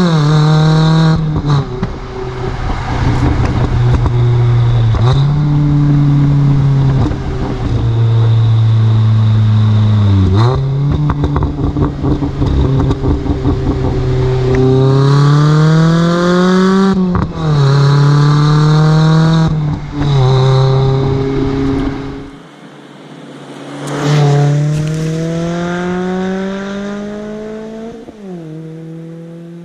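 A 2019 Mazda MX-5 ND2's four-cylinder engine heard through a Goodwin Racing axle-back exhaust, revving up through the gears. Its note climbs and then drops sharply at each upshift. When the throttle comes off, the revs fall away with bursts of crackling pops from its cracks-and-pops tune, heaviest about ten seconds in. The sound fades near the end.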